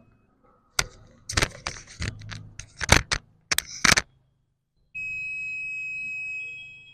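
A run of sharp clicks and knocks, then the continuity buzzer of a BABA Tools DT-831D+ digital multimeter set to beep mode. It sounds one steady high-pitched beep for about two seconds near the end, signalling continuity between the probes.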